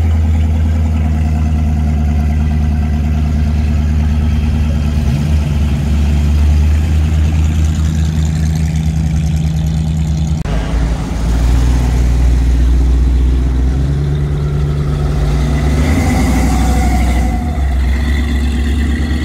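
Classic cars' engines running loudly as the cars drive slowly past one after another, a deep, steady exhaust note. The note changes abruptly about halfway through, and again shortly before the end, as a different car takes over.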